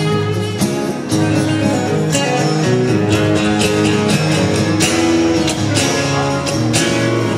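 Two acoustic guitars playing together live, strumming chords in a steady rhythm in an instrumental passage with no singing.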